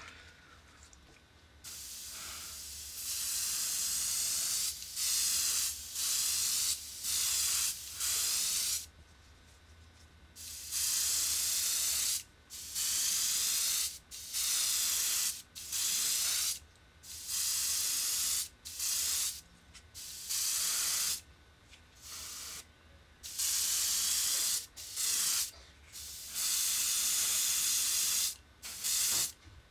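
Airbrush spraying Spectraflame paint for a filler coat: a long string of hissing bursts, each one to two seconds, as the trigger is pressed and released, with short quiet gaps between.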